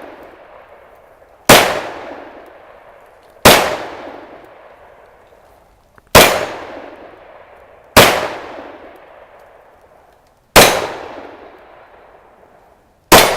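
Six pistol shots from a Glock 31 Gen 4 chambered in .357 SIG, fired at an even pace roughly two seconds apart. Each shot has a sharp crack followed by an echo that fades over a second or more.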